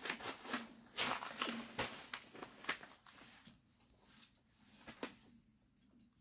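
Rustling and scuffing of nylon snow pants and boots as a person shifts on slushy ice, with close handling noise. A dense run of sharp rustles in the first three seconds thins to a few scattered scuffs.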